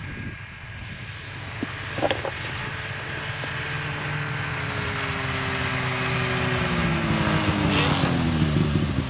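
Snowmobile engine approaching, growing steadily louder, its pitch dropping over the last few seconds as it slows and pulls up. A short knock sounds about two seconds in.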